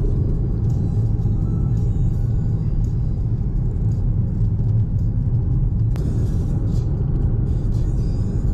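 Steady low rumble, even in level throughout.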